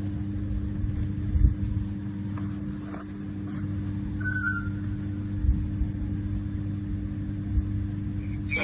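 A steady low mechanical hum, with a few dull low thumps and a brief high tone about four seconds in.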